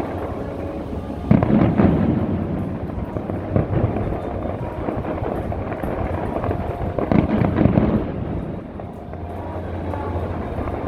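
Aerial fireworks shells bursting in two loud volleys of booms, one about a second in and another around seven seconds in, each trailing off in a rumble.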